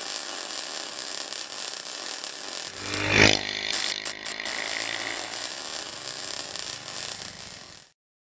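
Quadcopter drone's propellers buzzing steadily, with a brief loud surge in pitch and level about three seconds in. The buzz cuts off sharply just before the end.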